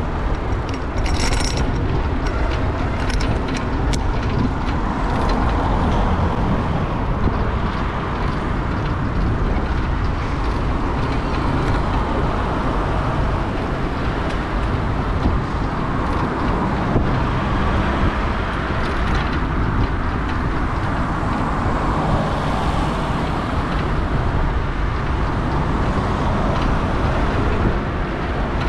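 Riding noise from a camera on a moving bicycle: steady wind and road rumble, with city car traffic. There are a few sharp clicks about a second in.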